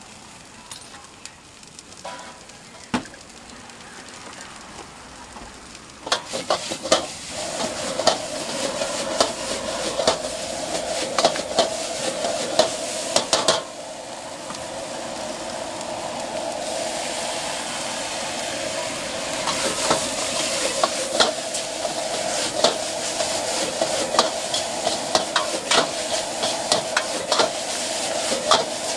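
Fried noodles and greens sizzling in a carbon-steel wok over a gas flame, with a metal ladle clacking and scraping against the wok as it stirs. The sizzle is quieter for the first six seconds or so, then jumps up loud with frequent ladle clicks, dips for a moment about halfway and builds again.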